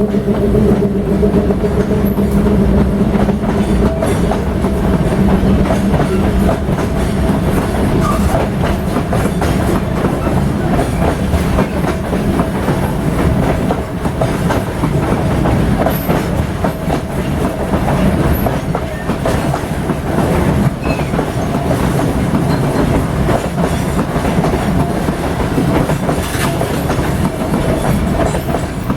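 Loaded freight wagons rolling past in a continuous heavy rumble, the wheels clicking over the rail joints again and again.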